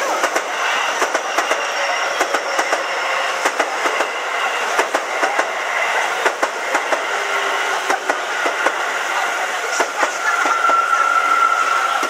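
Keio Line electric commuter train passing close by at a level crossing, its wheels clacking over the rail joints in a run of irregular sharp clicks. A steady whine comes in near the end.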